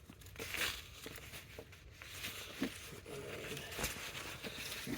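Rustling and handling of the Sitka Tool Belt's nylon fabric as its dump pouch is pulled open, with a few short clicks and knocks.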